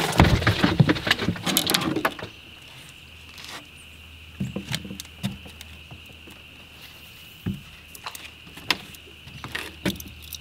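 Loud clattering and rattling for about two seconds, then a few scattered clicks and knocks, over a steady high-pitched insect drone.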